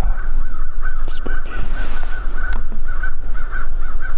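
A flock of birds calling over and over in a continuous chatter, with a steady low rumble underneath.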